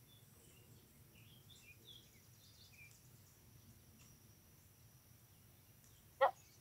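Faint bird chirps, scattered through the first three seconds, over a faint steady high whine. Near the end a single short voice sound breaks in.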